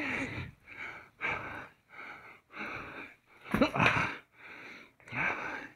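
A cyclist breathing hard after riding, about eight heavy breaths in a steady rhythm, picked up right at the mouth by the microphone in his camera sunglasses, with a short voiced grunt a little past the middle.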